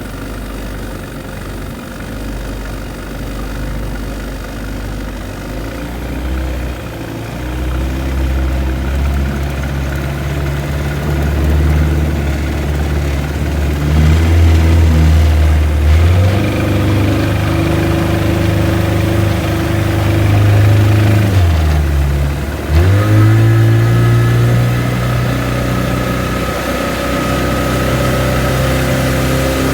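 Outboard boat motor, back in use after ten years idle and freshly rebuilt, running steadily while its speed is raised in steps. About two-thirds through, the revs sag sharply and the motor picks back up, then runs at a higher, steady speed.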